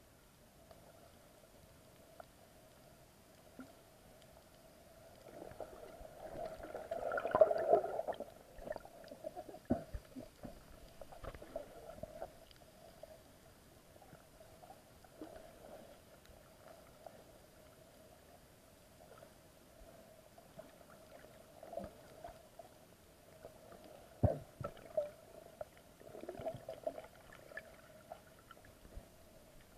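Muffled underwater sound of a snorkeler in the sea: water swishing and gurgling around the camera with scattered clicks and knocks, over a faint steady hum. A louder rush of water swells about seven seconds in.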